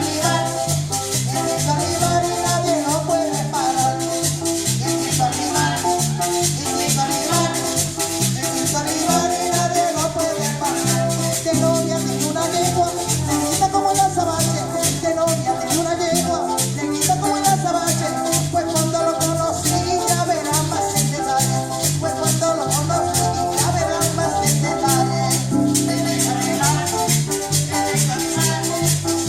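Latin-style pop song without clear vocals, with a fast, even shaker rhythm over a stepping bass line and a melody.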